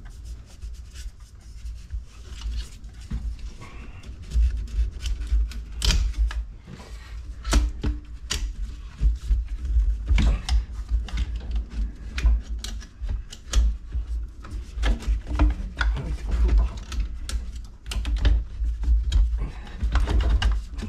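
Irregular plastic clicks, rattles and knocks of engine-bay hoses, clips and connectors being worked loose by hand, over a low, uneven rumble.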